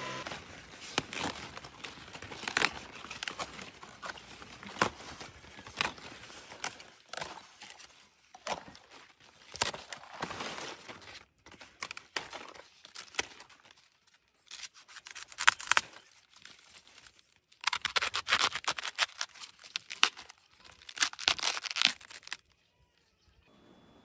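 A knife cutting through cabbage stalks and leaves: repeated crisp crunches, snaps and tearing of leaves in clusters, busiest in the second half.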